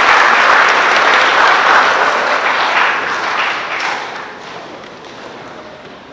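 Audience applauding, a dense clapping that dies away about four seconds in.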